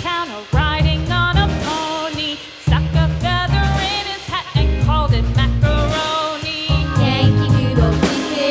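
Background song: a sung melody over a steady drum and bass beat.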